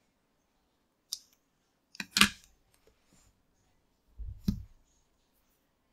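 Craft scissors cutting off a yarn tail: a small click of the blades about a second in, then a sharp, louder snip about two seconds in. Near four and a half seconds comes a dull thump with a click, as the scissors are set down.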